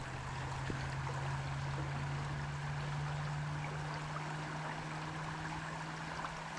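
Creek water running steadily over the streambed, with a steady low hum underneath.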